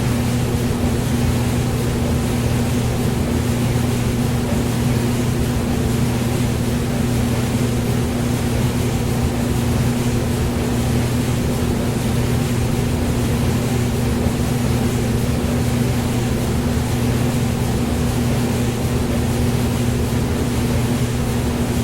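Hair dryer running steadily: an even rush of blown air over a constant low motor hum, with no change in speed or pitch.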